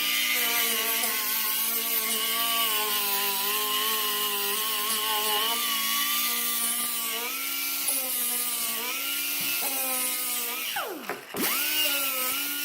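Electric grinder running with a 120-grit abrasive against a metal part, taking out grind marks. Its motor whine shifts in pitch as it is pressed in and eased off. About eleven seconds in it briefly slows sharply and spins back up.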